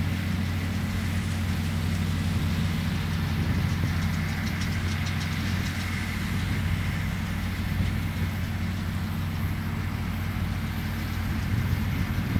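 International Harvester 1066 tractor's six-cylinder diesel engine running at a steady speed, a constant low hum with no change in pace.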